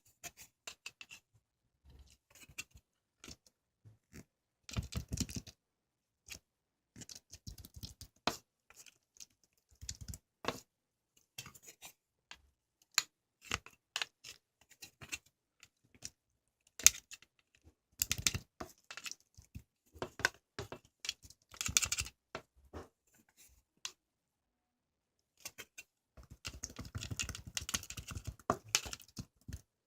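Hands handling paper and small craft items on a desk: irregular taps, clicks and rustles, with short denser stretches of rustling and cutting.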